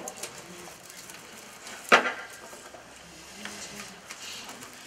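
Faint rustling and crackling of pine greenery, twigs and binding wire being handled as a cluster is wired onto a twig wreath, with one sharp knock on the wooden tabletop about two seconds in.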